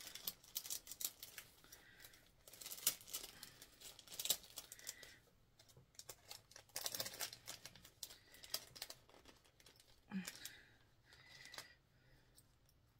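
Crinkling and crackling of a small plastic packaging bag being handled and opened by hand, in irregular bursts of rustles and clicks.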